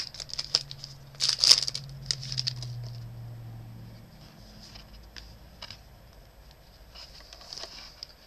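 Foil trading-card pack wrapper crinkling and tearing as it is opened, loudest in the first two seconds. It is followed by sparse soft clicks and rustles as the cards are handled.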